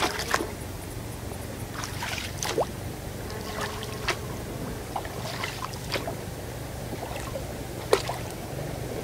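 Oars of an inflatable rowing boat dipping and pulling through the water: short splashes and light knocks about every second, the sharpest near the end, over a faint steady low hum.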